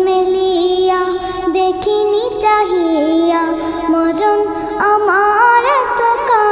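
A young girl singing a Bangla gojol, an Islamic devotional song, holding long notes that bend and waver in pitch.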